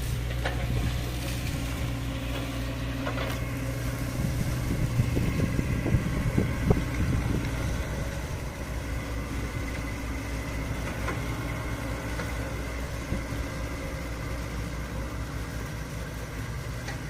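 Excavator's diesel engine running steadily, with a few knocks in the first several seconds, then settling to an even, slightly quieter run.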